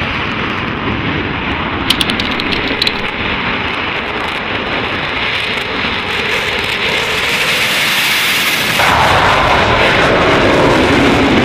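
Eurofighter Typhoon jet engines at takeoff power: a steady rushing engine noise heard from inside the cockpit during the takeoff roll, with a few short clicks around two seconds in. About nine seconds in it switches abruptly to the louder outside sound of the jet climbing away.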